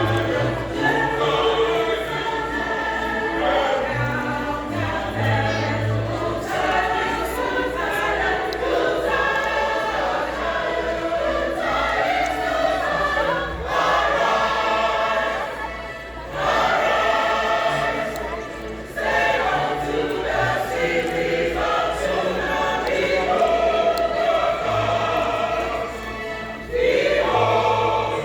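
A choir singing a Christmas carol, phrase after phrase, with short breaks between phrases.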